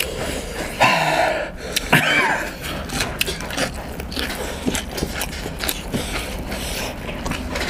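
Eating sounds from singju (a raw salad) eaten by hand: chewing, crunching and lip smacks, with many small clicks. A short cough-like noise comes about a second in.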